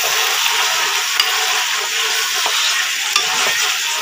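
Chicken and potatoes frying and sizzling in a kadai while a metal spatula stirs them and scrapes the pan, just after ground tomato purée has gone in. A couple of sharp clicks come about a second in and again near the end.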